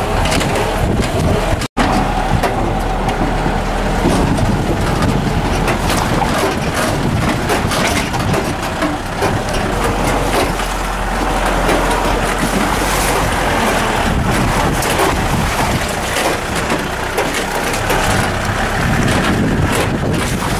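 Vehicle driving on a rough dirt hill road, heard from on board: steady engine and road noise with frequent knocks and rattles. The sound cuts out for an instant about two seconds in.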